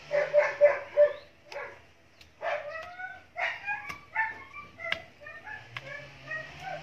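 A dog barking four times in quick succession at the start, followed by a run of short, higher, yelping notes that slide up and down. A few sharp clicks sound in between.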